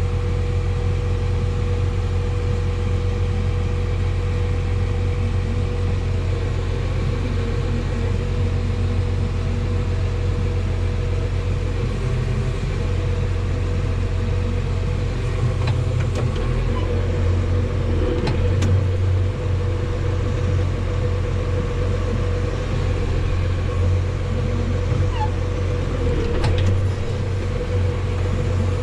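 Farm tractor engine running steadily under load, a continuous low drone with a steady hum, with a few light knocks after the middle and near the end.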